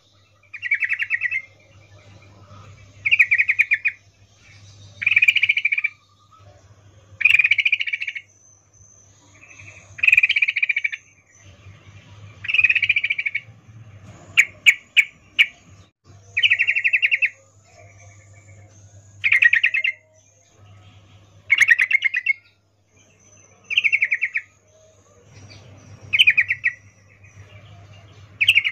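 Female yellow-vented bulbul giving its chattering mating call: a short, rapid chatter repeated about every two seconds. About halfway through, the chatter breaks into four quick sharp chips.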